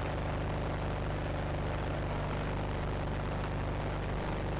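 Rotax 582 two-stroke, water-cooled engine of a Chinook Plus 2 ultralight running steadily in level flight, heard from the cockpit.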